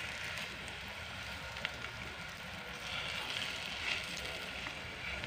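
Colenak patties of mashed fermented cassava sizzling steadily in butter in a nonstick pan, with a few faint clicks as a fork turns them.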